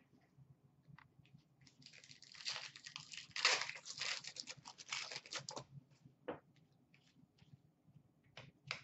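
A foil Upper Deck hockey card pack being torn open, its wrapper crinkling for about four seconds from roughly two seconds in. Scattered soft clicks and rustles of the cards being handled follow.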